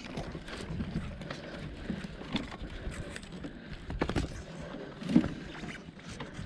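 Fishing rods and a spinning reel being handled in PVC rod holders: irregular knocks, clicks and rattles, with the loudest knock about five seconds in.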